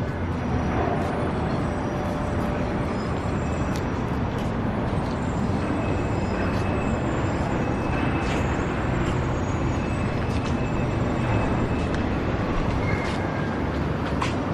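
Steady city street traffic noise, with scattered light clicks and taps over it.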